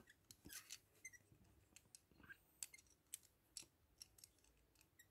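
Faint, irregular clicks and ticks, a dozen or so, from a tiny metal-and-plastic Cars Mini Racers toy truck (Ivy) being turned over in the fingers, its parts and wheels tapping against fingertips and nails.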